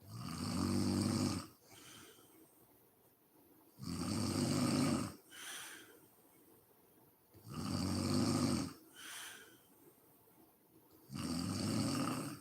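A sleeping woman snoring in a steady rhythm: four loud snores, each about a second long and roughly four seconds apart, each followed by a shorter, fainter breath.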